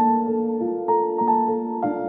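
Slow, gentle piano music, with new chords struck about once a second over sustained notes.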